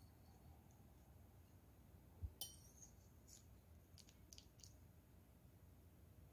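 Near silence broken by faint clinks of a metal fork against a ceramic plate while cutting into lasagna: a soft thump and a sharper clink a little over two seconds in, then a few lighter clicks.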